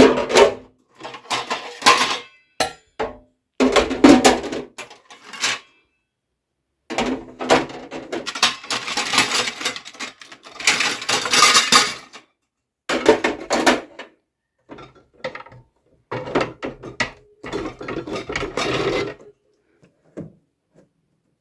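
Fridge shelves, drawers and containers clattering, knocking and scraping as they are fitted back into a refrigerator, in a series of separate bursts.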